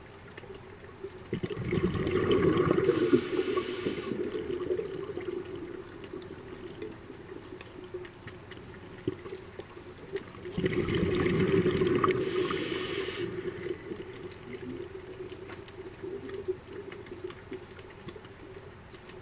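Scuba diver's exhaled breath bubbling out of the regulator, heard underwater, twice: once about a second and a half in and again about ten seconds in, each rush lasting a couple of seconds. A steady low hum and faint clicks run underneath.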